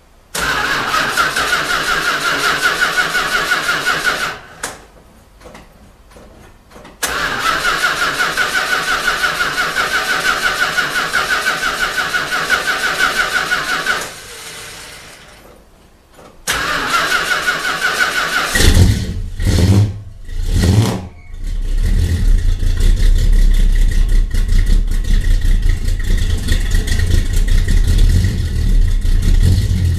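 Car engine being cold-started: the starter cranks for about four seconds, stops, cranks again for about seven seconds, stops, and cranks once more until the engine catches. It stumbles twice, then settles into a steady running rumble.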